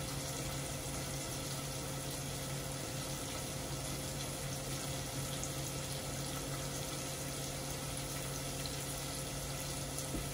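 Water running steadily at a kitchen sink as rice is drained in a strainer, with a low steady hum underneath.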